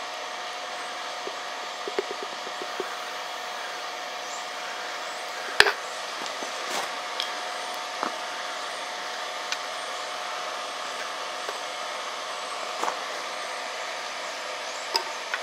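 A blacksmith's forge running steadily, a constant rushing hum with one thin steady tone through it. A few light knocks and clinks of tools and the flux can on the anvil, the loudest about five and a half seconds in.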